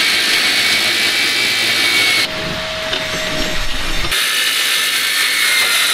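Circular saw cutting through metal plate, a loud, steady rasping whine. It eases off for about two seconds partway through, then runs at full level again.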